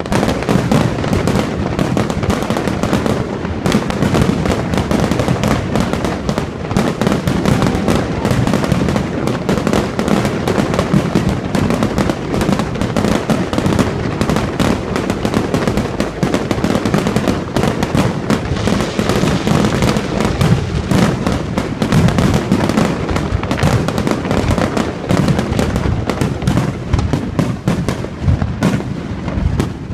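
Aerial fireworks display going off in a rapid, unbroken barrage: many shell bursts and crackles overlapping, with a deep rumble beneath.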